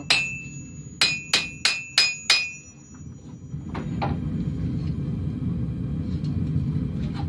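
Two-pound hammer striking a hot steel khukuri blade on the anvil to bring the point together: about six ringing blows in the first two and a half seconds. The blows then stop, and a steady low rumble fills the rest.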